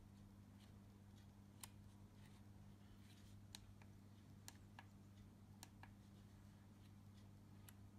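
Near silence with faint, scattered clicks of buttons and the control dial being pressed on a Nikon Coolpix P900 camera, about seven in all, over a low steady hum.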